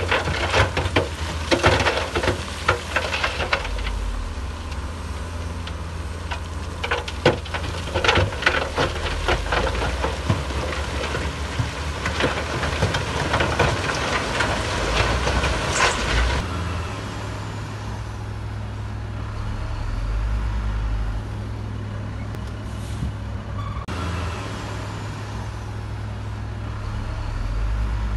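Heavy diesel earthmoving machinery running, with a continuous low engine drone. Dense clattering and knocks fill the first part, then stop a little past halfway, leaving a steadier engine hum.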